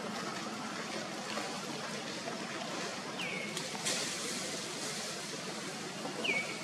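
Steady outdoor background hiss with two short high chirps, each dropping in pitch, about three seconds apart, and a single sharp click near the middle.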